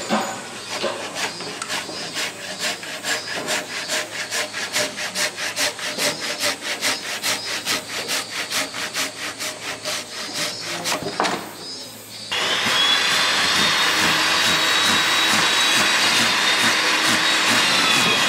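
Japanese pull saw cutting across a timber beam in quick, even strokes. About twelve seconds in, a louder steady machine noise with a high whine starts and covers the sawing.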